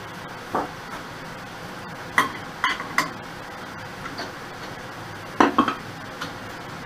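Metal clicks and clinks from a lathe scroll chuck being opened with its T-handle chuck key: a few sharp clinks about two to three seconds in and another quick cluster about five and a half seconds in.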